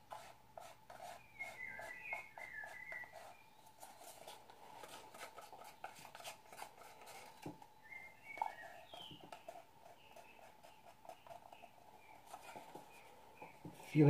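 Faint clicks, taps and scraping of a small plastic cup of acrylic paint being handled and scraped out over the canvas. Short runs of faint bird chirps come and go.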